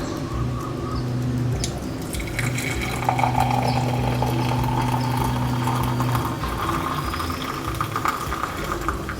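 Hot drink being poured through a strainer into a cup, with liquid splashing and filling. A steady low hum runs underneath for the first six seconds or so.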